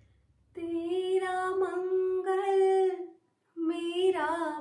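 A woman singing a slow Hindi devotional song unaccompanied, in long held notes, with a brief pause for breath about three seconds in.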